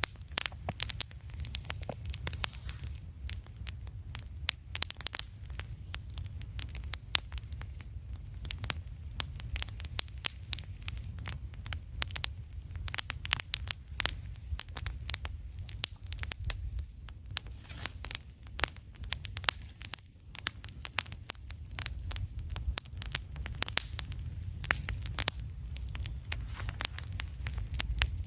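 Wood campfire crackling and popping, with dense, irregular sharp snaps over a steady low rumble.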